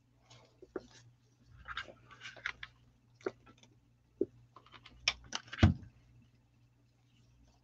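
Hands handling ribbon and crinkled paper while gluing them onto a decoration with a hot glue gun: scattered rustles, taps and clicks, with one louder knock about two thirds of the way through.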